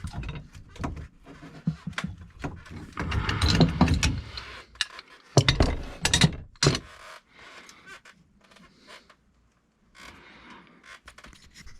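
Scattered clicks and knocks of things being handled, with a louder rustling stretch a few seconds in and a couple of heavy thumps just after it, then lighter ticking.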